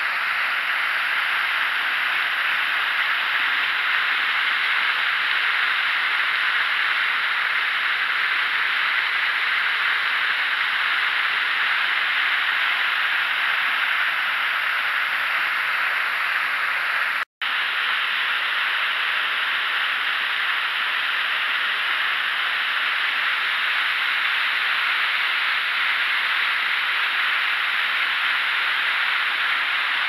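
Waterfall pouring onto rocks close by: a steady, loud rush of falling water and spray. The sound cuts out for a split second about halfway through.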